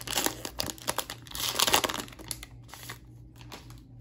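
Foil trading-card pack wrapper of a Panini Chronicles football value pack being torn open and crinkled, dense and loudest in the first two seconds, then dropping to a few soft ticks as the cards are handled.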